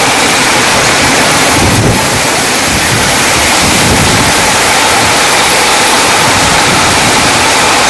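Heavy rain pouring in strong wind: a loud, steady rushing noise, with wind buffeting the microphone in low surges about two and four seconds in.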